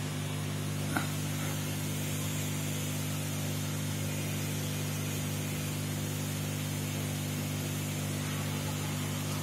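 Aquarium pump running: a steady electrical hum under an even hiss of air and water, with one small click about a second in.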